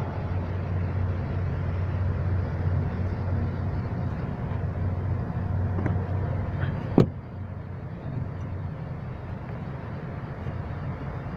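A car engine running steadily with a low hum, with one sharp click about seven seconds in.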